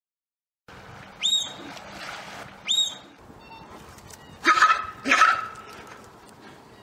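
A dog gives two short, high-pitched whines, then barks twice, the barks the loudest sounds, after a moment of silence at the start.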